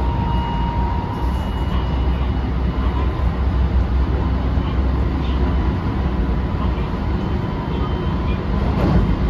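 Running noise heard inside a JR West 223 series 2000-subseries motor car with a Toshiba IGBT VVVF drive: a steady heavy rumble of wheels on rail with a faint high whine from the traction motors. A brief knock comes near the end.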